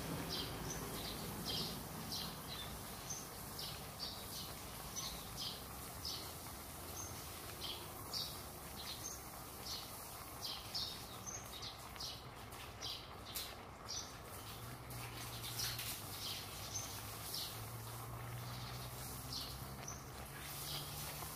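A small bird calling with short, high chirps repeated about twice a second, over a faint low hum that grows steadier in the second half.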